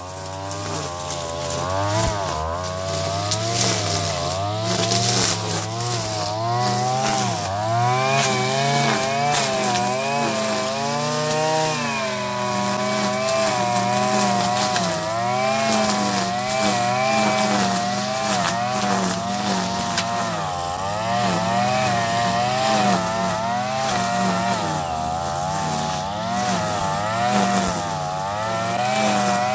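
Mitsubishi TL33 two-stroke brush cutter running hard, its spiked nylon line whirring through grass. The engine pitch wavers up and down every second or two as the line bites into the grass and the throttle is worked.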